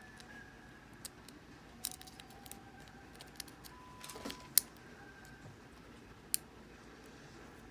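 Lock pick and tension bar scraping and clicking inside a Brinks solid-brass padlock, mostly faint scratches and ticks, with two sharper clicks about four and a half seconds in and again near six and a half.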